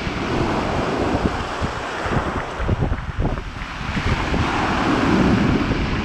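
Sea waves breaking and washing up a pebble beach, the surf swelling twice, with wind buffeting the microphone.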